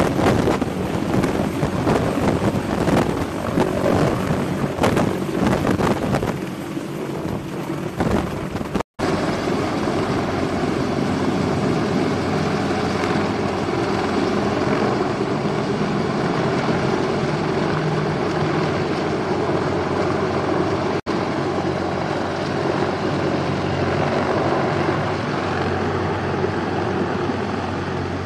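CH-53E Super Stallion heavy-lift helicopter's rotors and turbine engines running. At first it is close overhead, gusty and choppy with rotor downwash buffeting the microphone. After a cut about nine seconds in, it runs steadier and more distant.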